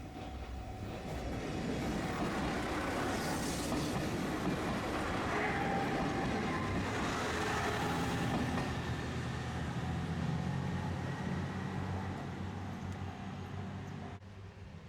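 Diesel railcar on the non-electrified Dosan Line passing close by: the rumble of wheels on rail with a low engine note, swelling up after about a second, holding for most of the time, then cutting off suddenly near the end.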